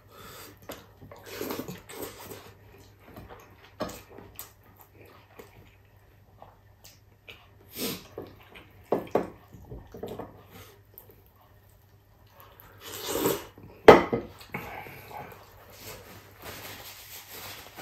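A person eating beef marrow soup and rice with the hands: chewing and wet mouth smacks, with scattered small clicks of fingers and food on a plate. A sharp click about fourteen seconds in is the loudest sound.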